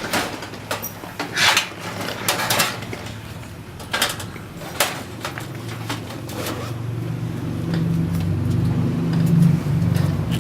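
Scattered clicks and knocks of computer parts being handled during disassembly, then a motor vehicle engine running low and growing louder from about six seconds in.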